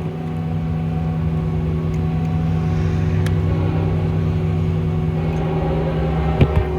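A Ford F550's 6.4 Power Stroke V8 diesel running steadily, with a faint click about three seconds in and a sharper knock near the end.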